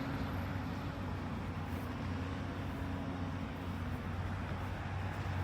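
A steady low engine drone with a constant hum, no crashes or impacts.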